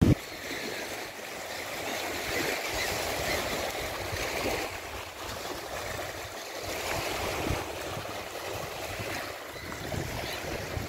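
Small waves lapping and washing onto a sandy, pebbly shore: a steady hiss that swells and eases, with gusts of wind rumbling on the microphone. A brief knock at the very start.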